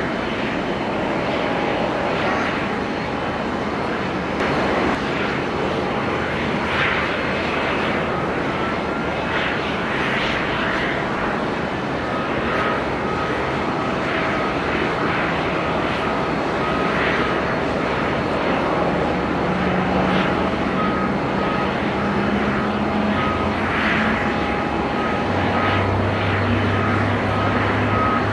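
Steady jet aircraft engine noise across an airport apron. From about twelve seconds in, a short high beep repeats about once a second, from a tow tractor's warning beeper.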